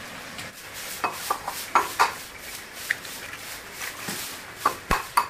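Eggs tapped and cracked against the rim of a glass bowl: scattered light clicks and knocks, with a sharper cluster of knocks near the end.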